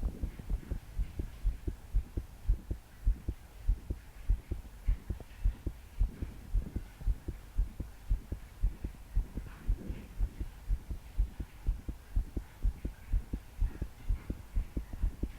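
A young woman's heartbeat pounding fast and hard, a steady run of low thuds several times a second, heard as palpitations. Soft breaths rise over it a couple of times.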